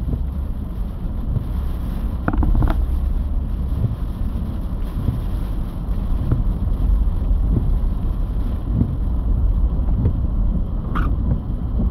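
Steady low rumble of road and wind noise heard from inside a moving car.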